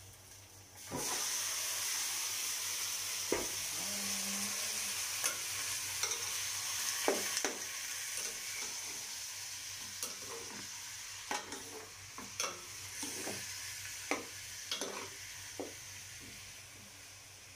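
Raw chicken pieces frying in a hot aluminium pot of oil with sautéed onion, garlic and chili: a loud sizzle starts about a second in and slowly dies down. The sizzle is broken by the knocks and scrapes of stirring.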